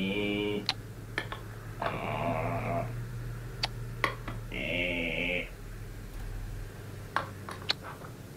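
Cartoon sound effects: three short buzzing, nasal tones, at the start, about two seconds in and about five seconds in, with light clicks scattered between them and a couple more near the end.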